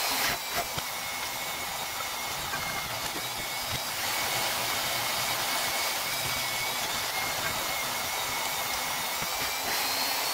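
Portable band saw running and cutting into rectangular metal tubing clamped in a vise, making a relief cut so the tube can be bent: a steady hiss of the blade in the metal with a thin high whine.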